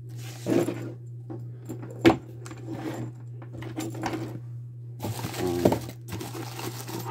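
Handling sounds on a wooden desk: scattered knocks and clicks, one sharp click about two seconds in, as a CB radio's power cord and hand microphone with its metal plug are set down. Plastic packaging crinkles from about five seconds in. A steady low hum runs underneath.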